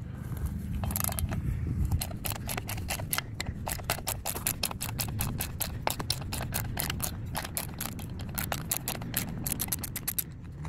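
Socket ratchet wrench clicking in a steady run of sharp clicks, several a second, as it backs off the 13 mm nut holding an anode on a Bravo 3 outdrive. The clicks come faster near the end as the nut loosens.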